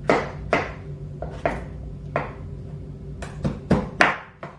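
Kitchen knife chopping through hard raw squash, the blade knocking down onto a plastic cutting board. About eight sharp chops at an uneven pace, coming quicker in a run of four near the end.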